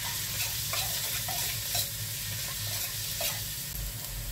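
Minced garlic and ginger sizzling in hot oil in a stainless steel wok, stirred with a metal ladle that scrapes and clinks against the wok several times.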